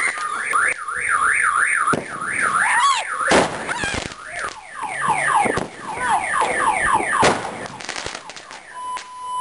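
Whistling ground firework spewing sparks: a shrill whistle warbling up and down about three times a second, then a run of quick falling whistles, with several sharp cracks in between.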